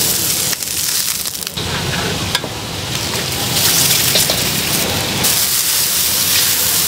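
Food frying on a hot griddle: a loud, crackling sizzle that dips briefly early on and swells louder about halfway through.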